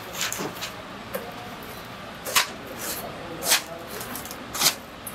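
Baked samosas being taken off a metal baking tray and dropped into a cardboard box, making three sharp knocks about a second apart over background chatter.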